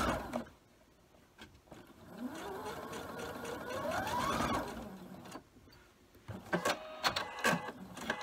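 Electric sewing machine stitching: the motor stops just after the start, then runs again for about two and a half seconds, rising in pitch as it speeds up, and stops. Near the end come a few clicks and short beeps.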